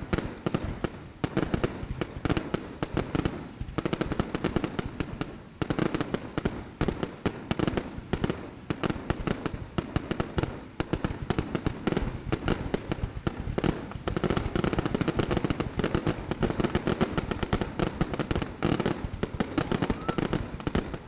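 Aerial fireworks display: a rapid, continuous barrage of shell bursts and crackling, easing briefly a few times.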